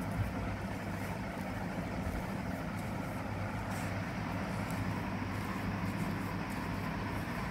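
A steady low motor hum, like an engine running close by, with faint rustling and scraping as coarse salt and chili are pressed by hand onto a block of fresh cheese.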